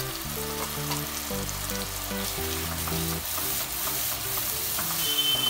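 Onion paste and ground spices frying in hot oil in a kadai, sizzling steadily while a wooden spatula stirs and scrapes the masala.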